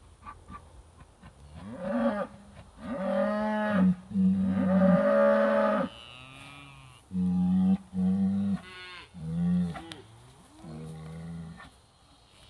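British White cattle mooing over and over, about seven calls: two long loud ones in the first half, then shorter ones. The herd is agitated, riled up by an old cow hide hanging on a hay ring.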